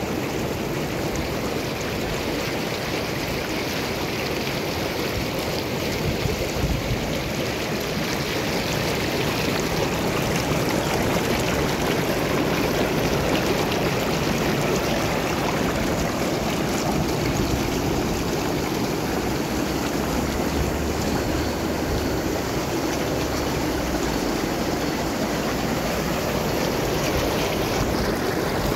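Water churning and bubbling around a large LEGO ship hull as it floods and sinks: a steady rushing splash, a little louder from about ten seconds in.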